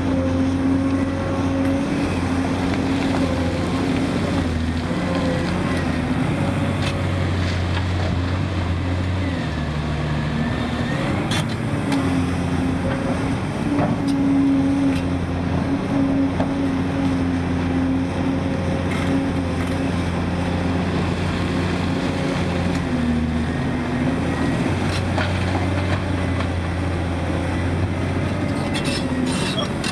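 Cat 385C excavator's C18 diesel engine running under hydraulic load as the bucket digs, its drone dipping and rising every few seconds as the load changes. A few sharp knocks stand out over it.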